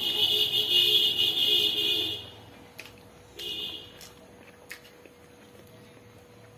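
A loud horn-like tone: one long blast of about two and a half seconds, then a short one about a second later.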